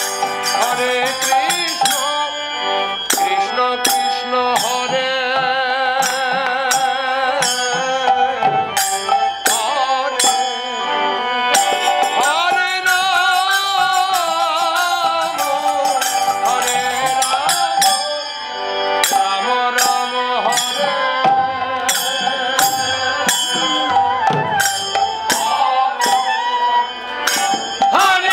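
Bengali kirtan music: bamboo flute and harmonium melody with a man singing, over a steady rhythm of khol drums and kartal hand cymbals.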